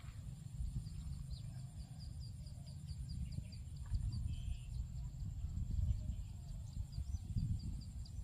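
Wind rumbling on the microphone in an open rice field. Over it runs a steady high-pitched buzz and a fast string of short high chirps, about four a second.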